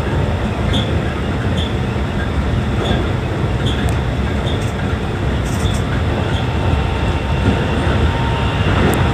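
Keikyu New 1000 series electric train running at speed, heard from inside the front cab: a steady rumble of wheels on rail with scattered light clicks.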